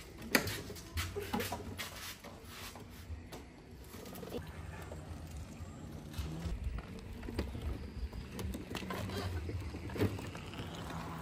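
Doves cooing in the background, with a few sharp clicks and knocks.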